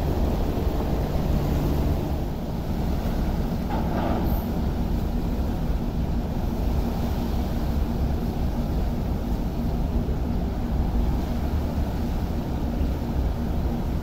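Star Ferry's engine running with a steady low hum while the ferry manoeuvres alongside the pier, its propeller churning the water. Wind on the microphone.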